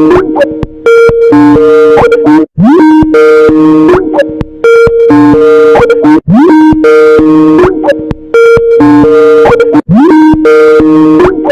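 Skype incoming-call ringtone, bass boosted and played very loud. Its tune repeats about every three and a half seconds, each pass opening with a rising swoop followed by a run of short notes.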